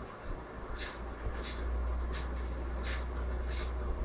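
Pen writing on lined notebook paper: a series of short scratchy strokes, about one every 0.7 seconds. A low steady hum comes in about a second in.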